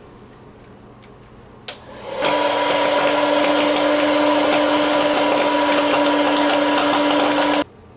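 Dash FreshPop hot-air popcorn maker running: its fan blows steadily with a steady hum. It starts about two seconds in, just after a single click, and cuts off suddenly near the end.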